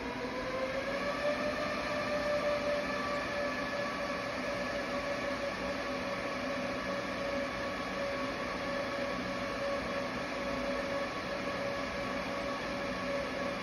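Dell PowerEdge R740XD rack server's cooling fans spinning up at power-on: a whine that rises in pitch over the first second or two, then holds at a steady, a little loud high speed.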